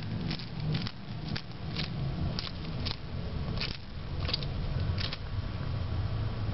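Madagascar hissing cockroach, caught in a bearded dragon's jaws, giving short hisses about twice a second: its alarm hissing as it struggles to escape.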